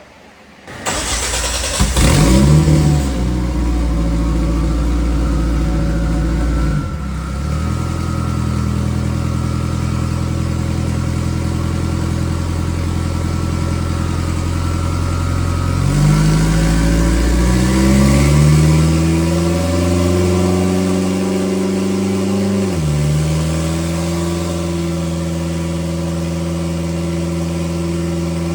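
Race car engine starting with a loud rev, then running steadily. Just past halfway it climbs in pitch in steps for several seconds, drops back, and settles to a steady run.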